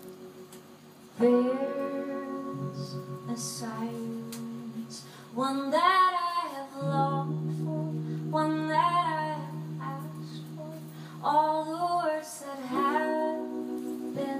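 A folk song with a woman singing several phrases over long, held instrumental notes.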